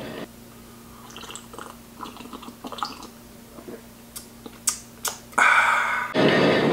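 Coffee sipped from a ceramic mug: quiet small slurping and swallowing sounds with a few sharp clicks, and a louder noisy sip about five and a half seconds in. Near the end it gives way to steady road noise inside a vehicle's cabin.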